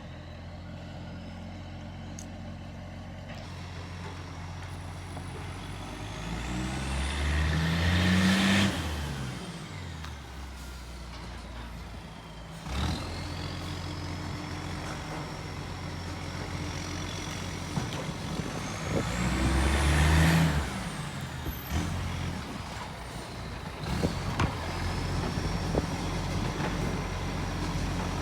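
Garbage truck's diesel engine idling, then revving up twice, about eight and twenty seconds in, with a high whine that climbs each time; the engine has an exhaust leak.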